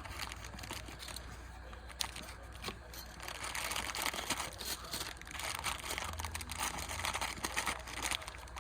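Plastic packaging crinkling and rustling as small items are handled, with a few sharp clicks.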